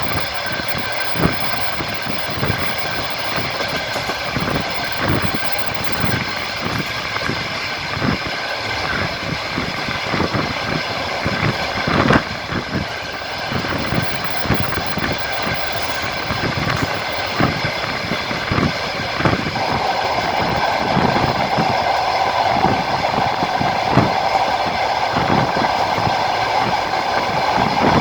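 Passenger train running along the line, heard from inside the carriage: wheels knocking over rail joints in a run of short, uneven clicks over a steady rumble and hum. About two-thirds of the way in a louder, steady mid-pitched noise joins in.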